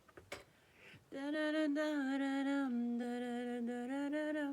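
A woman humming long held notes. After a short break with a small click, she hums a slow tune whose note steps down and then back up.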